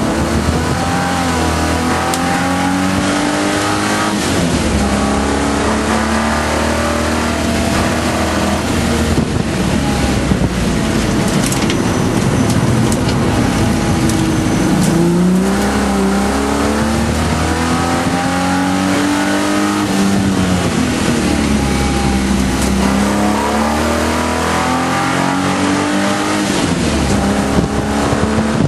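Holden VP Commodore's 3.8-litre V6 heard from inside the cabin at racing pace, its pitch climbing under acceleration and falling back several times as it is pushed around the circuit.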